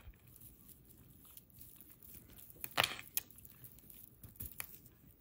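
Soft clicks and light rustling of a tangled multi-strand necklace being handled and untangled by hand, with a few sharper clicks a little past the middle.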